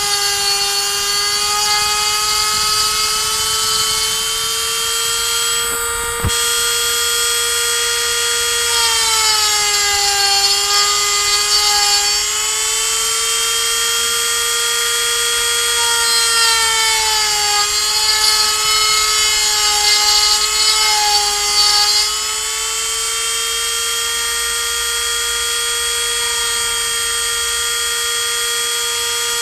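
A 135-watt handheld rotary tool spinning a 3 mm cutter as a CNC router mills pine, giving a steady high whine. Between about nine and twenty-two seconds in, the whine sags slightly in pitch several times and turns rougher as the bit cuts under load. There is a single sharp click about six seconds in.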